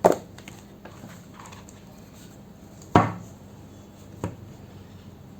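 Handling noise from a boxed oracle card deck being opened: two sharp knocks against a tabletop about three seconds apart, and a fainter knock about a second later.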